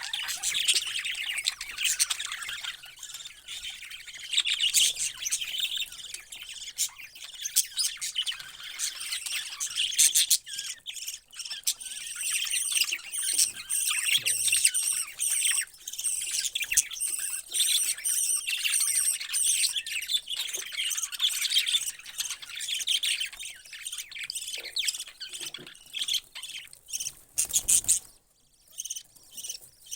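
Many parrots chirping and squawking at once in a dense, busy chatter that cuts off abruptly near the end, leaving fainter chirps.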